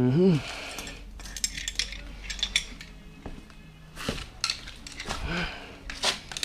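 Metal hand tools clinking and clattering as they are picked up and handled, in a scatter of separate sharp clinks; a short pitched sound that bends up and down opens it.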